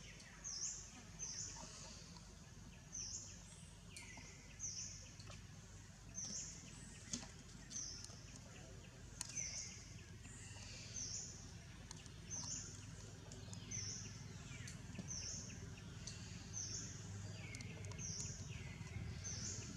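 A bird repeating a short, high chirp about once a second, with a few faint clicks over a steady low background rumble.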